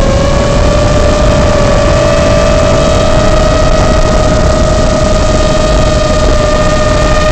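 Steady high-pitched hum of a Flywoo Explorer LR micro long-range quadcopter's brushless motors and propellers in cruise, one held tone edging slightly up in pitch over a hiss of wind and noise.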